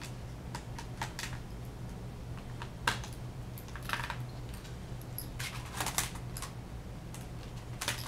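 Scattered light plastic clicks and taps from a netbook keyboard and plastic case being handled and fitted, with a short burst of clattering about six seconds in. A faint steady low hum lies underneath.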